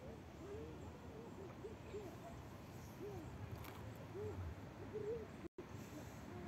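Quiet outdoor ambience with soft, low hooting calls repeated irregularly. The sound cuts out completely for a moment about five and a half seconds in.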